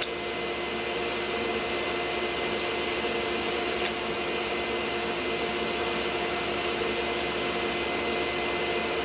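Steady hum of a workshop machine motor running, a constant hiss with a few fixed tones in it.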